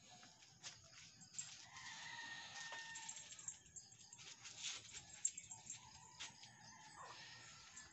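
Faint outdoor sounds: scattered light taps and scuffs of footsteps in rubber slippers, and a distant rooster crowing once for about a second, starting around two seconds in.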